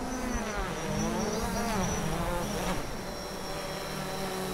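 Quadcopter drone hovering close by, its propellers giving a buzzing whine. The pitch wavers up and down for the first few seconds as the motors change speed, then steadies.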